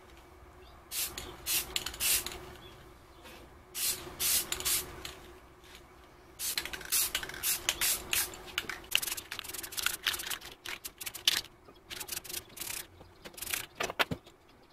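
Aerosol spray-paint can hissing in a series of short sprays, with brief pauses between them and a long run of quick bursts in the middle.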